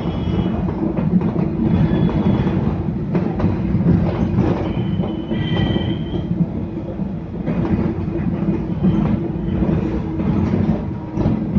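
Mumbai Monorail train running on rubber tyres along its elevated concrete beam, heard from inside the front cabin: a steady low running rumble with frequent short knocks, and a brief high-pitched whine about five to six seconds in.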